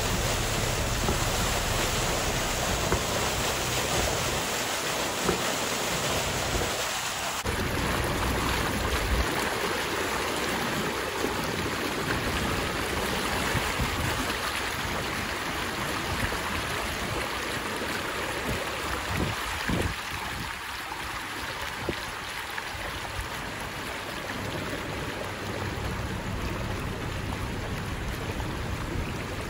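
Storm water gushing up out of a storm drain around a manhole cover held up on the column of water, a dense steady rush. About seven seconds in it gives way to floodwater swishing and splashing along a car's front tyre as the car moves slowly through the flooded street.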